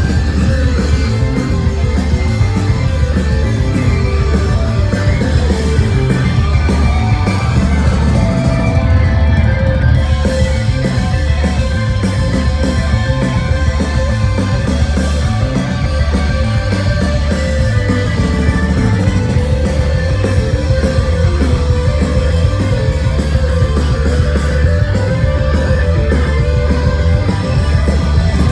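Live psychedelic rock band playing loud, with guitars over heavy bass and drums in a dense, continuous wall of sound.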